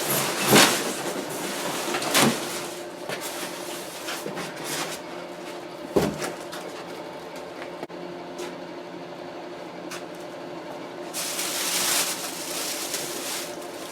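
Packaging and parts being handled during unpacking: a few sharp knocks, with rustling and scraping near the end.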